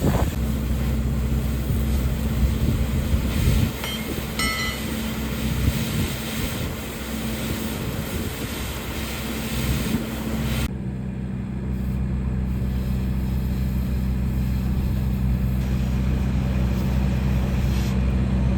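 Engine of heavy earthmoving or lifting machinery running steadily with a low hum, under a broad hiss that drops away abruptly about ten seconds in while the engine keeps running.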